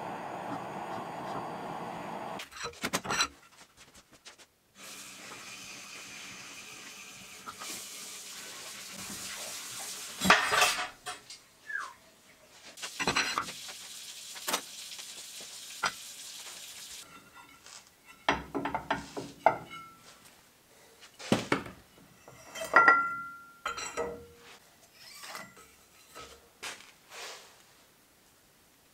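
Metal parts of a CVT driven clutch clanking and clinking as it is taken apart by hand, with a ringing metal clink about two-thirds of the way through. A butane torch hisses at the start, and a steady hiss runs under the clanks through the middle.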